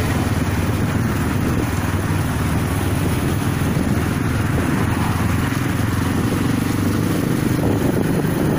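Motorcycle engine running steadily while riding in traffic, heard from on the bike, under a steady rush of wind and road noise.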